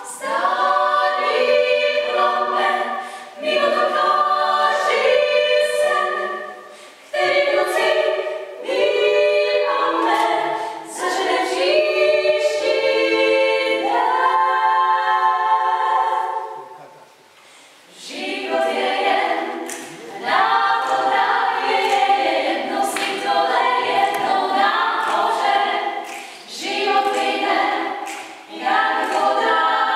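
Female vocal quartet singing a cappella in harmony, phrase after phrase with short breaks between them and a longer pause about 17 seconds in before the singing resumes.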